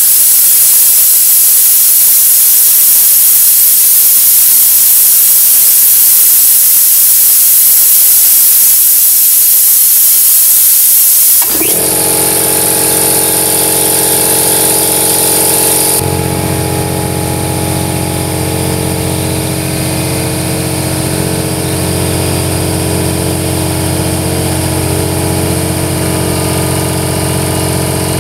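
Compressed air hissing steadily out of a bleed valve on the air compressor's tank. About eleven seconds in the hiss stops abruptly and the compressor's 230-volt electric motor and pump cut in at about 121 psi and run steadily, refilling the tank; their sound gets deeper a few seconds later.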